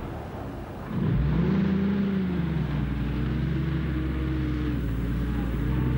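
Engine running, with a low rumble and a pitched drone that rises sharply about a second in, then holds steady with slight wavering.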